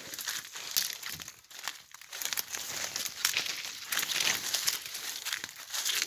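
Footsteps crunching through dry fallen leaves and twigs, with leafy branches rustling as they are pushed aside: a steady run of irregular crackles.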